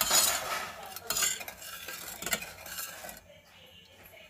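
A metal spoon stirring a sugar-and-water mixture in a stainless steel saucepan, scraping the pan and clinking against it. The stirring stops about three seconds in.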